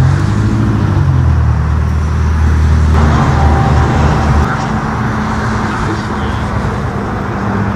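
Car engines running at low speed as cars drive off: a steady low engine note, which changes about three seconds in as a second car takes over, and thins out after about four and a half seconds.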